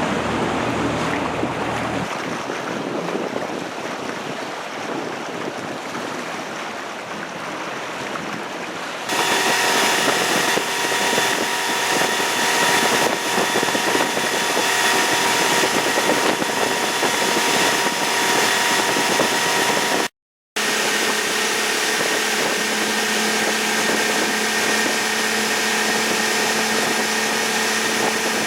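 Wind and water noise, then from about nine seconds a louder, steady mechanical drone with several steady whining tones, typical of a large ship's machinery. It cuts out to silence for a moment about twenty seconds in.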